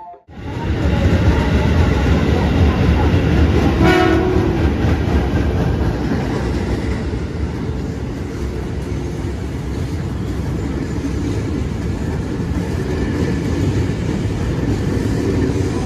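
KRL Commuter Line electric train running past: a loud, steady rumble of wheels on rails and traction motors, easing off slightly over time, with a brief horn toot about four seconds in.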